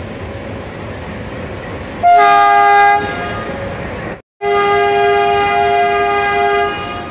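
Diesel locomotive rolling past close by with a steady rumble, then sounding its multi-tone horn: a loud blast about two seconds in, and after a brief dropout a second, longer blast of about two seconds.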